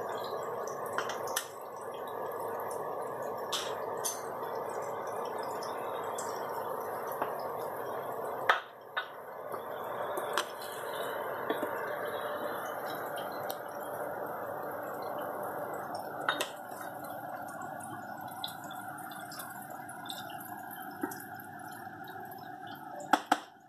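Chicken stew simmering in its thick sauce, bubbling steadily, with occasional clinks of a spoon against the pan.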